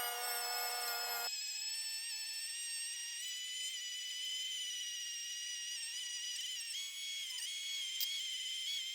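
Dremel Lite cordless rotary tool running at speed to polish a knife blade with polishing paste: a steady high whine that jumps up in pitch about a second in, then wavers slightly in pitch as it works.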